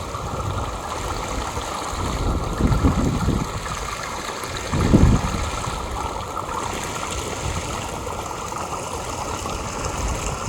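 Steady rush of running water, like a stream, with two brief low swells about three and five seconds in.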